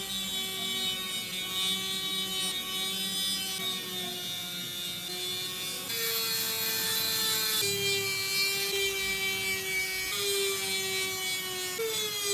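Handheld rotary tool with a small wheel cutting grooves into a wooden hatchet handle: a steady high motor whine over the gritty rasp of the wheel on the wood. The pitch sags a little under load and jumps abruptly about six seconds in and again near the end.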